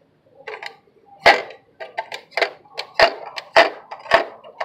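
Irregular sharp plastic clicks and knocks as a Hart cordless drill is handled on its store display mount: a dozen or so small ticks, with four or five louder knocks spread through.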